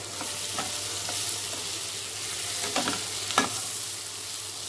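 Sliced mushrooms and cabbage masala sizzling in a hot oiled pan as a spatula stirs them, with a few sharp spatula scrapes against the pan, the loudest about three and a half seconds in.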